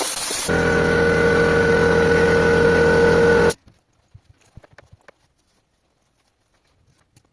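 A steady machine sound with a held tone, starting with a hiss and cutting off suddenly after about three and a half seconds, followed by faint light clicks.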